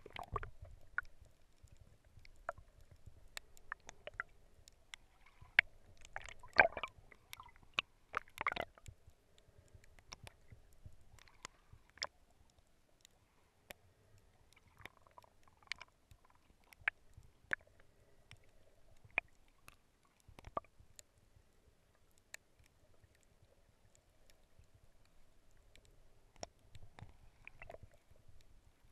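Underwater sound heard through a camera's waterproof housing: a low, muffled rumble of moving water with scattered sharp clicks and pops, the loudest cluster about six to nine seconds in, over a faint steady hum.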